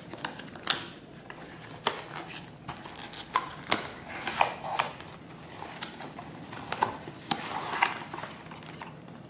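Small cardboard box being opened by hand: irregular rustles, scrapes and sharp clicks of cardboard and paper as the tray, a pouch and the paper inserts are pulled out.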